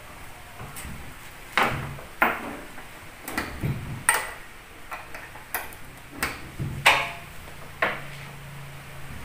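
Handling noise of speaker wire being fitted into the binding-post speaker terminals on the back of an amplifier's metal case: about a dozen separate clicks and knocks at uneven intervals.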